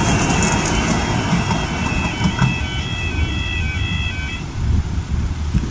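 Tyne and Wear Metrocar train moving away over a level crossing: a steady low rumble from the train on the track. Over it comes a run of thin high tones that step up and down in pitch for about four seconds, then stop.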